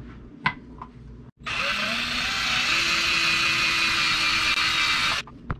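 Electric drill boring a hole into a pine lure blank: the motor spins up with a short rise in pitch, then runs steadily for about four seconds and stops abruptly. A single click comes just before it starts.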